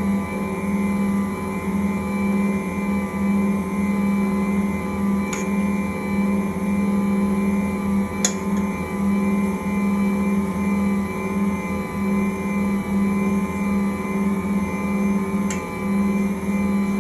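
Ankarsrum Original Assistant stand mixer running at a steady speed, its motor and drive giving a steady hum with a whine over it as the bowl turns with the roller mixing flour and water. A few light clicks come through, about five, eight and fifteen seconds in.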